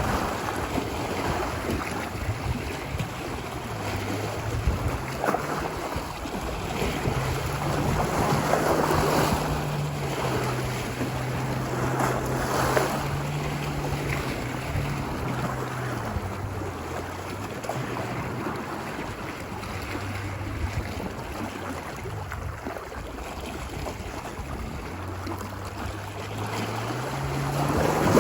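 Ocean surf washing ashore in a continuous wash, swelling as waves break every few seconds, loudest near the end. A faint low hum runs underneath and shifts in pitch now and then.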